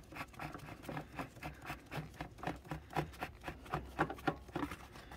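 Irregular light clicks and rubbing, several a second, as a gloved hand unscrews a spin-on oil filter and oil starts dripping out of it onto cardboard.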